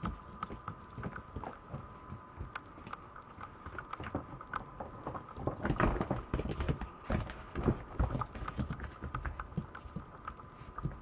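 Maltese puppies' claws clicking and pattering on a wooden floor as they scamper and play, busiest and loudest a little past the middle.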